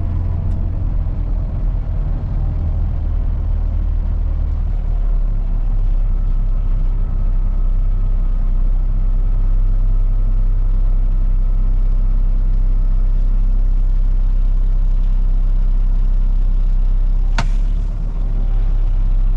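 Diesel engine of a concrete mixer truck running steadily with a low rumble, and a single sharp click near the end.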